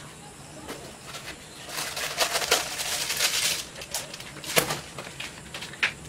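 Rustling and crinkling of plastic wrapping, loudest for a second or two in the middle, with a few sharp clicks and knocks of handling.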